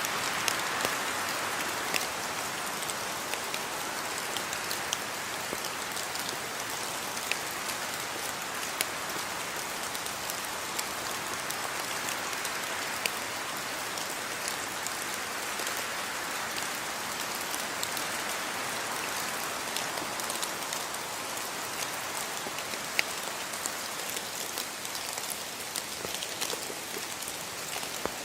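Steady rain falling, an even hiss of rainfall with scattered individual drops landing close by.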